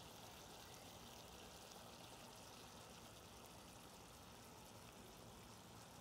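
Near silence: a faint, steady sizzle from chicken karahi simmering in a pan.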